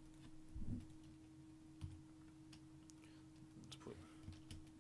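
Near-silent room tone with a steady hum and a few faint, short computer mouse clicks.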